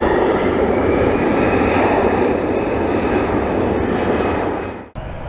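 Boeing 737-700's CFM56-7B jet engines at takeoff power: a loud, steady rush with a faint high whine. It fades in the last half second and cuts off abruptly near the end, leaving a quieter steady background noise.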